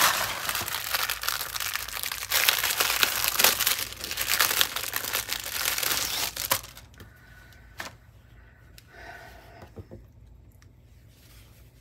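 Clear plastic bag crinkling loudly as a bundle of folded fabric is pulled out of it, stopping about two thirds of the way through. After that only soft rustling of cloth being unfolded, with a couple of light taps.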